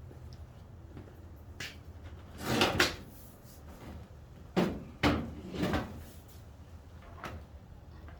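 Seat trim parts being handled and pulled free: a series of short knocks and rattles, the loudest clusters a few seconds in and about halfway through.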